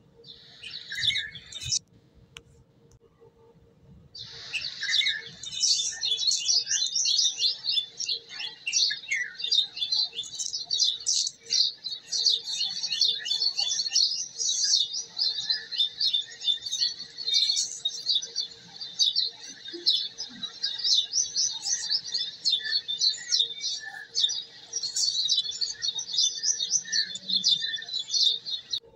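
Many small birds chirping and twittering in a dense, rapid chatter of high chirps, breaking off for about two seconds near the start, then running on without pause.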